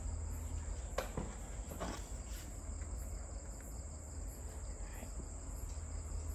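Crickets chirring steadily in one high, unbroken tone over a low hum, with two faint clicks about one and two seconds in.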